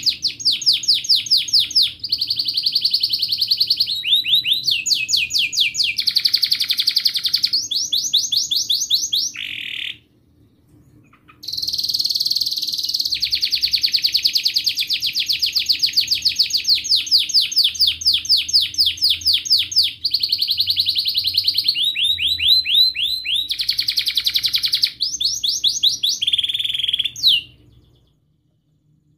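Domestic canary singing a long song made of rapid trills: each phrase is a fast run of repeated high notes, and the phrases change every second or two. The song breaks off for about a second and a half about ten seconds in, then stops shortly before the end.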